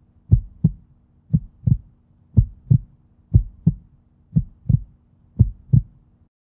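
Heartbeat: six slow double beats, lub-dub, about one a second, over a faint steady hum. It stops just before the end.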